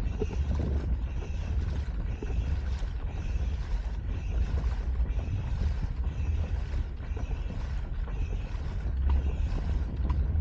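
Wind rumbling on the microphone over the splash of dragon boat paddles, which repeats steadily a little more than once a second.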